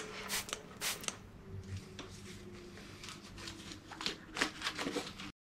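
Rustling and light clicking of a tactical vest and its pouches as a small spray can is handled and tucked away, in short bursts, cutting off to dead silence near the end.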